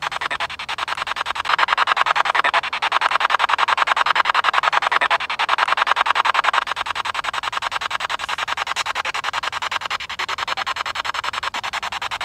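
Spirit box sweeping through radio stations: harsh static chopped into rapid, even pulses, about ten a second, with louder stretches in the first half. It is the radio-sweep noise in which the investigator hears a spirit answer, a fragment she takes for the name "Andy".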